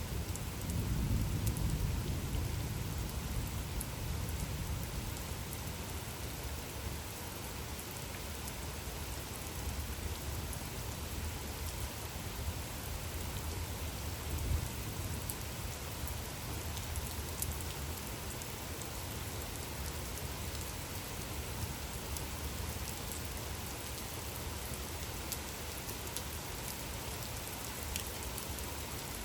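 Steady rain falling, an even hiss with scattered drop ticks. A low rumble fades away over the first few seconds.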